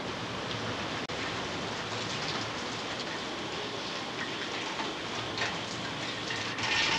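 Heavy hurricane rain falling steadily on wet pavement, with a momentary dropout about a second in and growing louder near the end.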